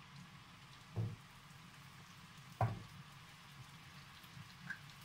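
Raw meatballs set one by one into a nonstick frying pan with a little oil: two soft thuds about a second and a half apart.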